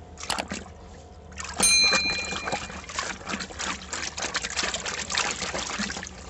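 A hand sloshing and splashing muddy toys about in a tub of water, continuous after about a second and a half. Near the start there is a click, then a short bell-like ding from the subscribe-button animation.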